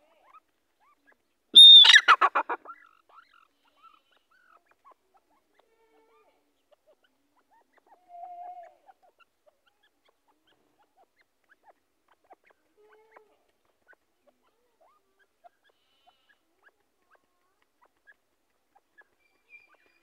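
Grey francolin giving one loud call about a second and a half in: a high whistled note that breaks into a quick falling series of about ten notes, lasting about a second. A faint short note follows near the middle, with scattered faint ticks.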